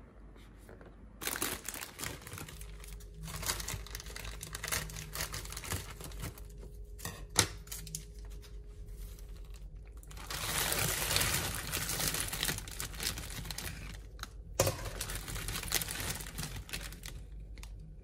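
Plastic grocery packaging crinkling and rustling as it is handled, including a bag of frozen Brussels sprouts. The crackle comes in two long stretches with a short pause between, broken by a couple of sharp clicks.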